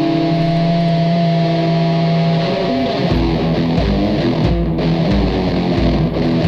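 Background rock music with electric guitar. Held guitar chords ring out at first, then about three seconds in the band comes in with a steady pulsing low beat.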